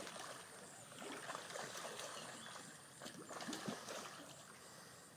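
Fish splashing and gurgling at the water's surface as they take floating bread: small irregular splashes and slurps, a little busier about a second in and again after three seconds.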